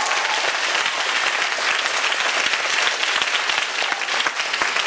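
Audience of students clapping and applauding steadily after a spoken-word poem.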